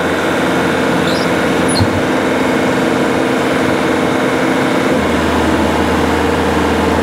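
Bobcat S530 skid-steer's Doosan D24 common-rail diesel engine running steadily at full throttle with the auxiliary hydraulics engaged, putting it under load. The low part of the sound changes about five seconds in.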